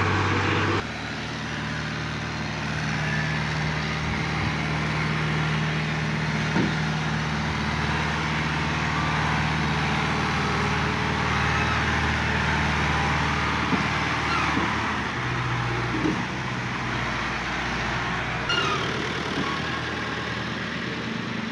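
Diesel farm tractor engines running at a steady speed while pulling loaded trailers. The engine note changes abruptly about a second in and again near the end, where separate clips are joined.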